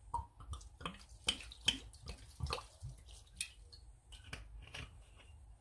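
Vinegar poured from a bottle into a wok of ingredients: a string of irregular drips and small splashes, with a few light clicks.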